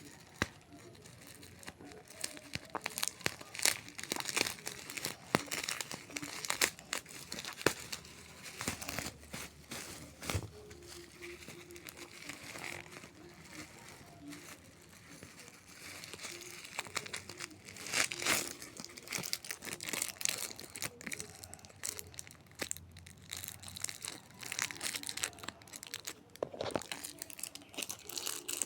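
Packaging being handled while a toothpaste squeezer is unboxed: crinkling and tearing with many irregular clicks and crackles.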